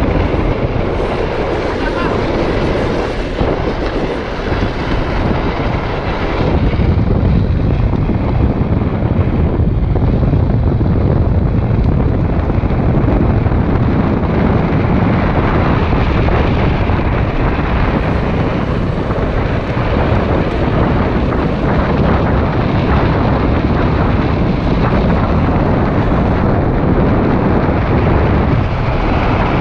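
Wind buffeting a helmet-mounted camera's microphone, mixed with the rumble of a gravity drift trike's wheels rolling fast on asphalt. It is steady, and somewhat louder from about six seconds in.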